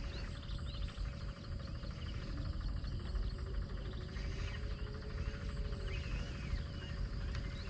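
Steady chorus of insects and frogs calling, a dense rapid trilling, with a few short chirps and a low rumble underneath.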